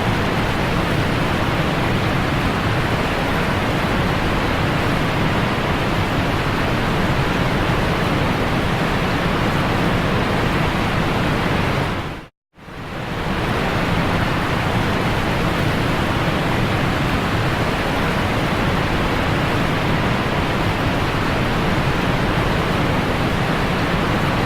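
Thunderbird Falls waterfall: a steady, loud rush of falling water that cuts out for a moment about halfway through, then carries on unchanged.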